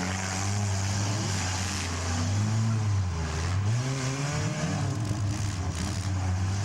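Engines of several small cars in a demolition derby running and revving, their pitch rising and falling about midway through.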